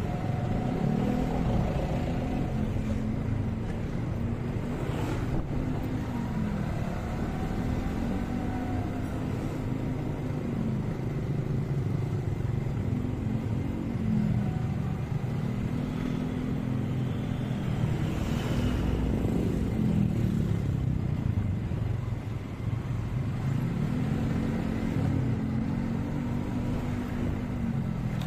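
Motorcycle engine running under the rider, its pitch rising and falling again and again as the throttle is opened and closed, over a steady low wind rumble.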